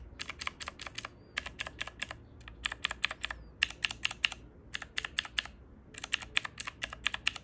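The mechanical keys on a Divoom Ditoo pixel-art speaker being pressed over and over, clicking in quick runs of several presses with short pauses between the runs.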